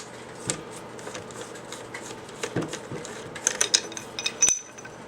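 Light metallic clicks and taps of an AR-7 rifle's barrel and parts being handled, scattered at first and busier near the end, with one sharp click and a brief high ring about four and a half seconds in.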